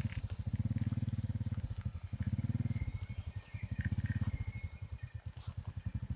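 Small motorbike's single-cylinder engine running at low revs with a steady, rapid putter that swells and eases every second or two.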